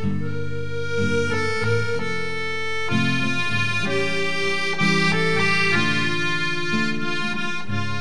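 Instrumental background music: held chords under a melody whose notes change every half second or so.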